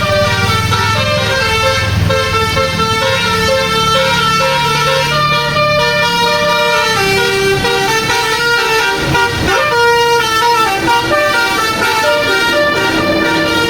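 Bus telolet basuri horn playing a melody: a continuous run of held notes stepping up and down in pitch, with a low hum underneath for the first half.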